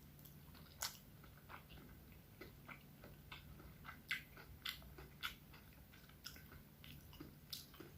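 Faint chewing of a mouthful of miso salmon and guacamole rice bowl: scattered soft mouth clicks and smacks over a faint steady hum.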